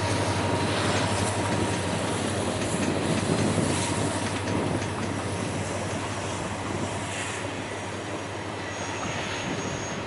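Passenger train running on rails: the steady low hum of a WDP4 EMD diesel locomotive over wheel and rail noise, slowly getting quieter, with a faint high wheel squeal near the end.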